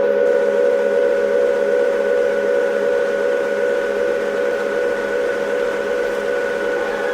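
A band's sustained effects drone: a chord of steady held tones over a hiss, slowly fading.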